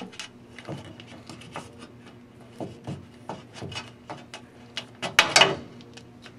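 Scattered small clicks and rattles of hand tools and wire being handled while an electrical wire connection is made, with a louder clatter about five seconds in.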